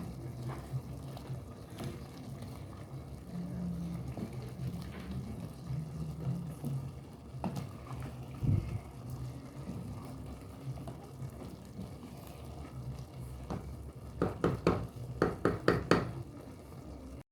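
A metal spoon stirring a pot of beef stew over a steady low hum, with a quick run of sharp knocks against the pot near the end.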